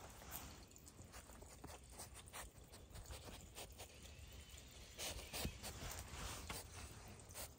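Faint rustling, scratching and clicking of coatis rummaging with their snouts and paws at a person's boots and trouser legs on bark mulch, with a louder stretch of rustling about five seconds in.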